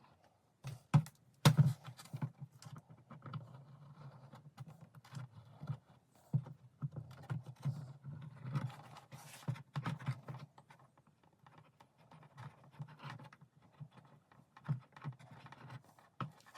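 Hands handling model boat hull parts on a workbench: two sharp knocks about a second and a half in, then scattered small taps, clicks and scrapes.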